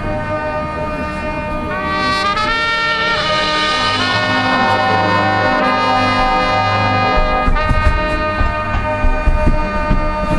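High school marching band's brass section playing held chords that swell louder about two seconds in, with drum and percussion hits coming in near the end.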